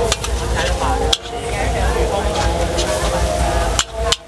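Metal spatula scraping and clicking against a wok while noodles, prawns and egg are stir-fried in hot oil, with steady sizzling.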